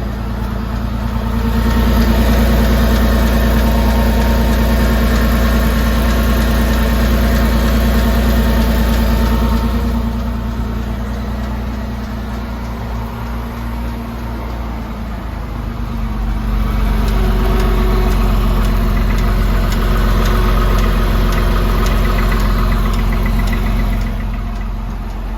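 Porsche 996's flat-six engine running, twice getting louder for several seconds and then settling back, with an abnormal noise (異音) that the owner is recording.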